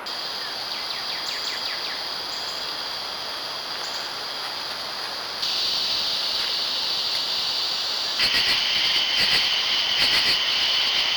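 Insects calling in a steady, high-pitched chorus. It grows louder about five seconds in, and a second, lower and pulsing layer of calls joins about eight seconds in.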